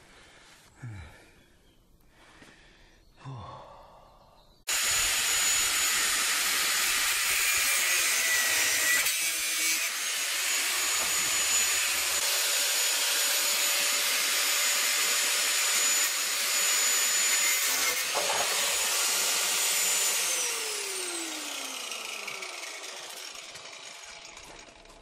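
Angle grinder with a cutting disc starting abruptly about five seconds in and cutting through steel chassis rail with a steady, high-pitched whine for about fifteen seconds. It is then released and winds down, its whine falling in pitch as the disc spins to a stop. A few faint short sounds come before it starts.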